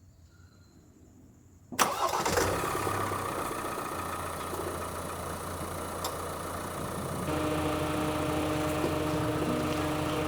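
Ford Transit van's engine starting, catching suddenly about two seconds in, then idling steadily.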